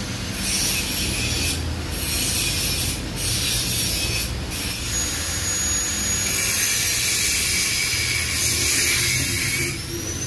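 TIG welding arc on 1 mm stainless steel, run from a stick-welding machine, hissing steadily. The hiss dips briefly about every second and a half in the first half, and a faint high whine glides up and down in the second half.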